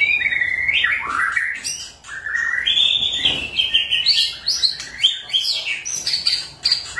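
White-rumped shama in full song: a loud, continuous run of whistled phrases with sliding and stepping notes, mixed with short sharp notes, pausing briefly about two seconds in.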